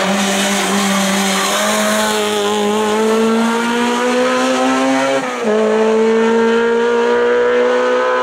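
Race car engine at high revs under full throttle, its note rising steadily, with one quick upshift about five seconds in before it climbs again.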